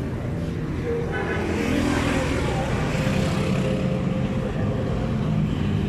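Roadside street traffic: motor vehicle engines running steadily, mostly a low hum.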